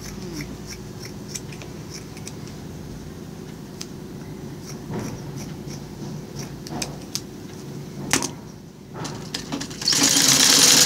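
Scissors snipping and fabric strips rustling as they are handled, a few sharp clicks among them; near the end an old black domestic sewing machine starts stitching, a steady run that is the loudest sound.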